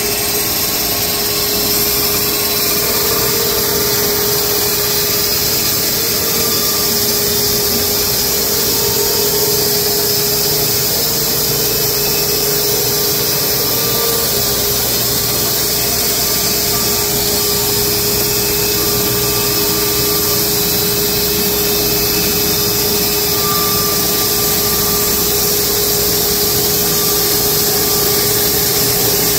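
Wood-Mizer LX250 band sawmill running steadily as it saws along a large horse chestnut log, a constant mechanical drone with a steady hum through it.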